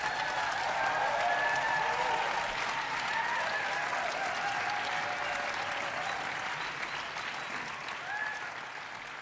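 Audience applauding: the clapping swells quickly in the first second or so, then slowly fades.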